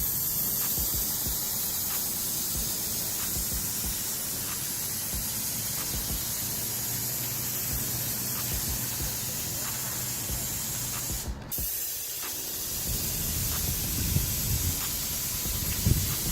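Paint sprayer spraying trim paint, a steady high hiss that cuts off briefly about eleven seconds in as the trigger is let go, then resumes.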